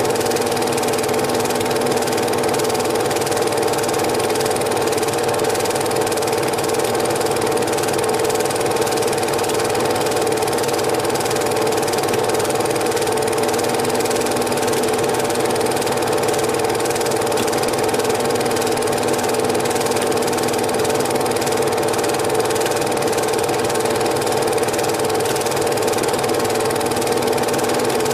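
Cine film projector running: a steady mechanical whir with a fast, even clatter from the film transport.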